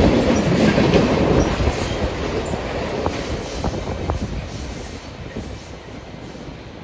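A train rolling past on the rails, its rumble loudest at first and fading steadily as it moves away.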